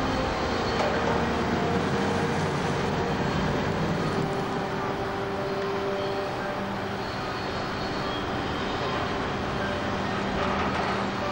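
Heavy diesel engine of a wheeled log loader running steadily as it drives and works in a timber yard, a dense machine noise with its engine note shifting a little.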